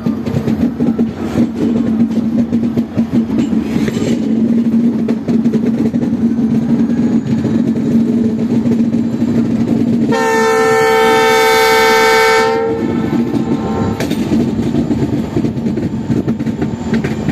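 Passenger train running on the rails, heard from aboard: a steady rumble of wheels and coaches. About ten seconds in, a train horn sounds one long blast of about two and a half seconds.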